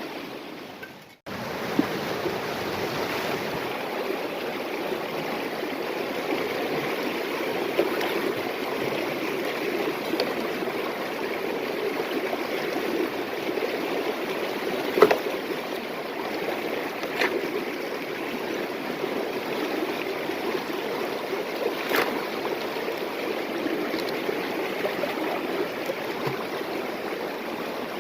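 Steady rushing of river water, broken by a brief dropout about a second in. A few sharp knocks sound over it, the loudest about halfway through.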